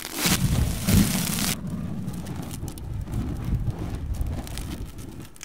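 Dense rumbling, crackling noise. The hiss cuts off suddenly about one and a half seconds in, leaving a low rumble with scattered crackles that slowly fades.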